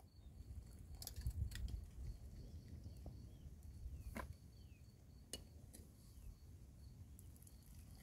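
A handful of light, spread-out clinks of a metal ladle against a cooking pot, over a low steady rumble.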